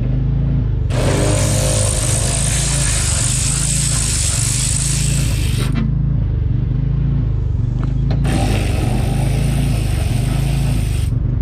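A power ratchet running two 10 mm window-track bolts out of a truck door, in two runs of about five and three seconds that start and stop sharply, the bolts already loosened. A steady low hum continues underneath.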